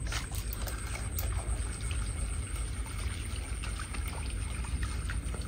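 Soft small splashes and trickling as a lure is twitched across the surface of shallow, weedy water, over a steady low rumble.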